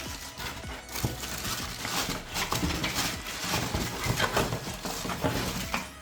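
Rustling and uneven light knocks, as of things being handled, over background music.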